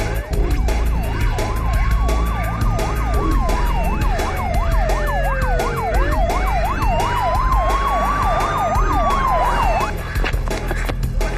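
Police sirens, one wailing slowly up and down and another yelping in fast rapid cycles, over background music with a steady beat. The sirens stop about ten seconds in.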